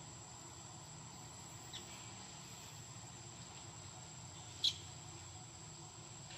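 Insects droning in one steady, high, even tone over a faint low background hum. A short, sharp chirp sounds twice: faintly about two seconds in, then louder about three-quarters of the way through.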